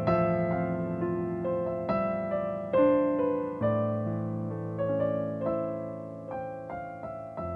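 Digital piano played with both hands: notes and chords are struck every half second to a second under a melody, and each one fades as it rings.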